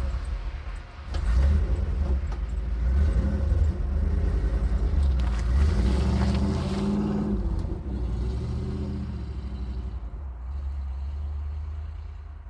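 Truck engine running and revving, rising and falling in pitch, as it is driven out through deep snow; it eases off after about eight seconds.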